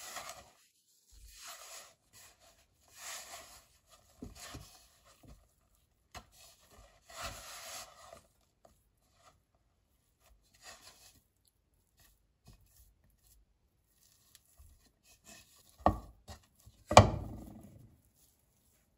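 Hands rubbing butter into flour in a ceramic bowl: a dry, crumbly rustling in repeated bursts, fainter as the mix is worked into a dough. Near the end come two sharp knocks about a second apart; the second is the loudest and rings briefly.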